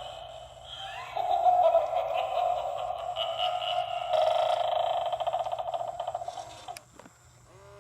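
Gemmy Halloween eyeball doorbell playing its spooky sound clip through its small built-in speaker after the chime, rapidly pulsing in its second half. It stops about seven seconds in.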